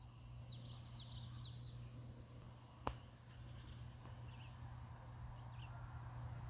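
Faint songbird chirping: a quick run of short chirps about a second in, then a few scattered fainter chirps. A single sharp click sounds about halfway through over a steady low hum.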